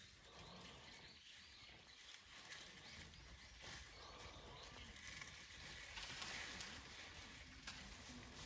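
Near silence: faint outdoor ambience with a few faint ticks.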